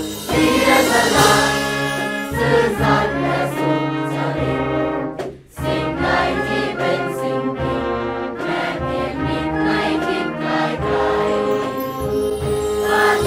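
A large choir singing in unison, accompanied by a brass band. The music drops out briefly about five seconds in, then carries on.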